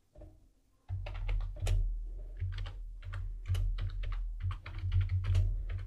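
Typing on a computer keyboard: a run of quick, irregular keystrokes beginning about a second in, as a terminal command is typed out.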